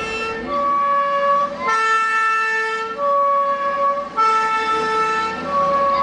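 Fire engine two-tone siren sounding a steady hi-lo alternation, a lower and a higher note each held a little over a second, over the low rumble of passing vehicles.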